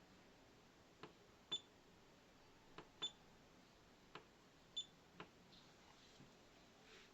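Laser distance meter being operated: about seven soft button clicks, spread over a few seconds. Three of them come with a short, high-pitched beep.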